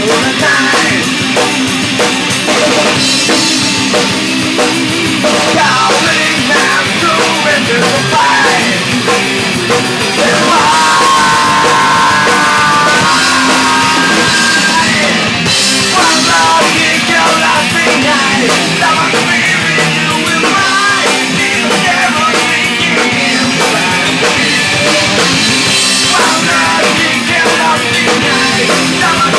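Live rock band playing at full volume: drum kit, electric guitars and bass in a punk-rock style, with a few held notes about ten to fifteen seconds in.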